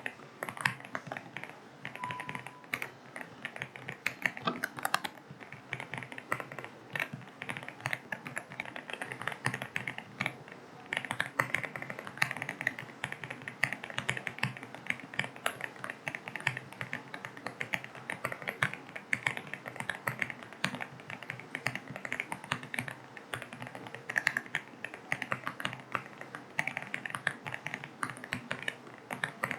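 Fast, continuous typing on an AULA F75 mechanical keyboard with linear switches: a dense run of key clacks several per second, with no pauses.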